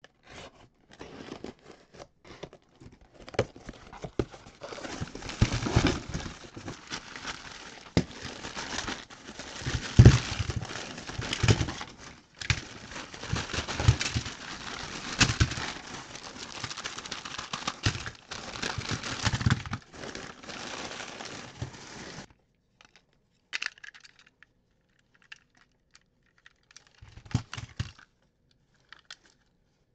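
Cardboard shipping box opened, then crumpled newspaper packing crinkling and tearing as it is pulled off a pile of plastic toy trains, with sharp clacks of the toys knocking together. About three-quarters of the way in the paper noise stops, leaving only scattered light plastic clicks as the toy engines are picked up and handled.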